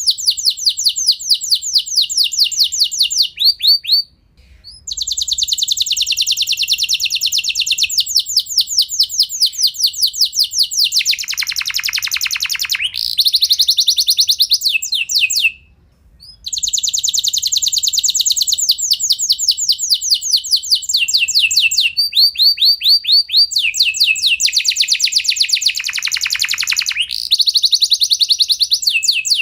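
Domestic canary singing long rolling trills of rapid, evenly repeated notes, one phrase running into the next, with two short breaks, about four seconds in and about halfway through. Twice a trill drops lower in pitch.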